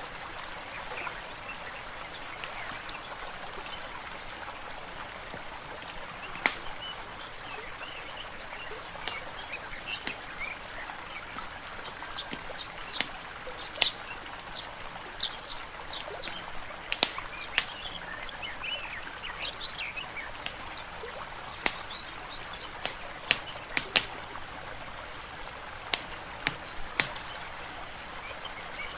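Layered nature ambience: a steady wash of water, with sharp crackles and pops from a wood fire scattered throughout and short bird chirps over it. The fire pops are the loudest sounds.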